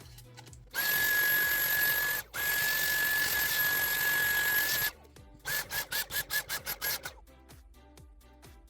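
A loud hissing blast of air with a steady high whistle, held for a few seconds with one short break, then a rapid series of about eight short puffs, over background music with a steady beat.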